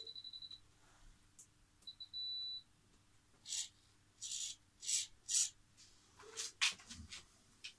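High electronic beeps from the model engine's radio or ignition electronics: a quick run of beeps ending about half a second in, then a short beep and one longer beep about two seconds in. Several loud rustling swishes close to the microphone follow, with the stationary propeller not turning.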